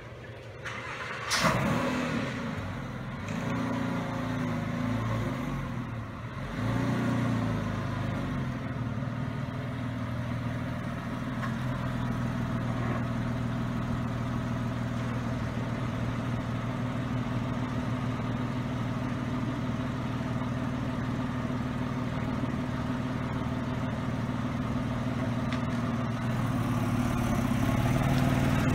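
Porsche 911's flat-six engine starting about a second in, revving briefly around six seconds, then running steadily. It grows louder near the end as the car pulls out and drives past.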